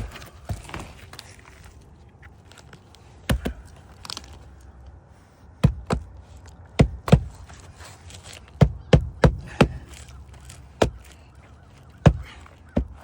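Hammer driving a roofing nail through an asphalt shingle into the roof deck. There are about a dozen sharp strikes, a few single ones early and then quick clusters of two to four from about halfway in.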